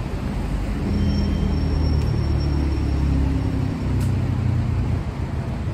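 Road traffic on a wet city avenue: the engines and tyres of passing cars and vans give a steady low rumble. A faint high whine runs from about a second in until nearly four seconds in.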